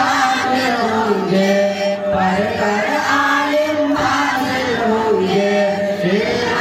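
School students singing their school anthem (tarana) in chorus, with the lead singer's voice carried over a microphone; the sung notes are drawn out and held.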